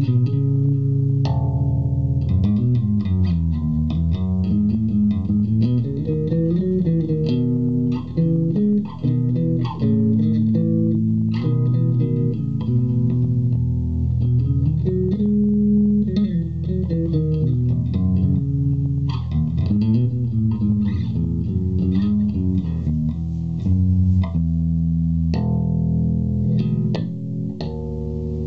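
Japanese '62 reissue Fender Jazz Bass played fingerstyle through an Orange Terror Bass 1000-watt hybrid valve/solid-state head and cabinet, with the EQ set flat at the centre 0 position. An unbroken bass line of plucked notes runs up and down in pitch, moving higher towards the end.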